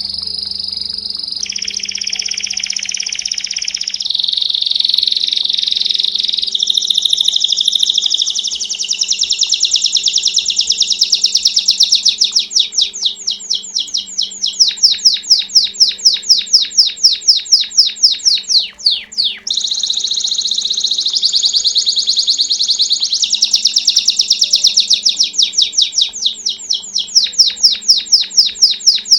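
Domestic canary (canário belga) singing a continuous song. It starts with rolling trills and moves into rapid strings of sharp repeated notes, with a short break about 19 seconds in.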